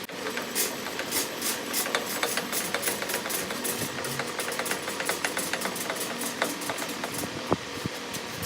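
Sidney lathe running, turning a half-inch rod as salvaged clothes-dryer resistance wire is wound onto it in a continuous coil. It makes a steady mechanical hum with many small, irregular clicks.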